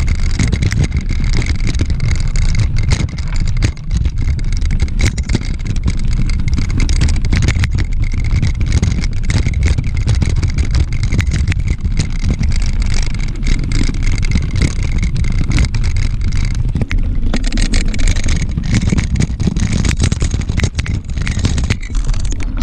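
Wind buffeting an action camera's microphone while riding a mountain bike, with the bike rattling and knocking over rough trail throughout.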